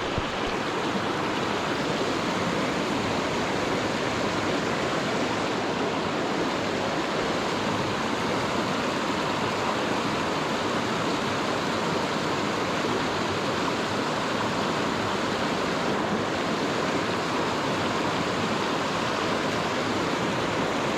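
Flowing water of a small coastal creek rushing steadily.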